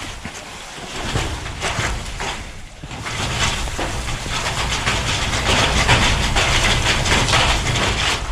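Snow- and ice-laden tree branches being shaken, with a dense crackle and hiss of ice and snow breaking loose and falling through the branches, getting louder from about three seconds in.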